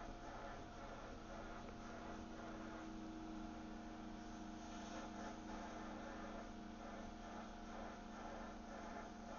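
Steady low electrical hum with faint hiss, with no programme sound over it.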